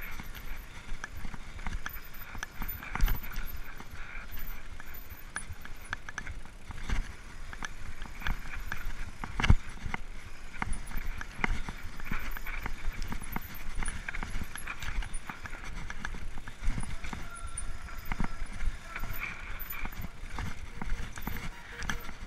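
Mountain bike rattling down a rough dirt trail: tyres crunching over dirt and roots, with the chain and frame clattering in a constant run of irregular knocks, two of them louder, about 3 and 9 seconds in.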